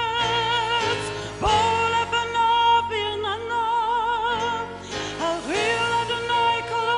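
Live worship band music: a woman's voice sings long held notes with vibrato over the band, sliding up into each new phrase twice.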